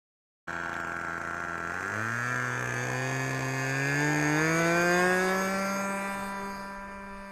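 Radio-controlled trainer model airplane's small combustion engine running, its pitch climbing steadily as the throttle is opened for the takeoff run, then holding at high revs. It is loudest about five seconds in and fades as the plane moves away.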